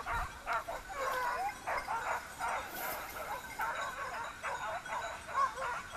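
A pack of hunting hounds giving tongue, several dogs baying and yelping in quick, overlapping cries without a break: the sign that they are working a scent.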